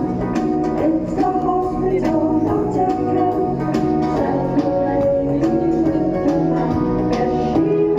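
Background music: a song with steady instrumental accompaniment and a voice singing.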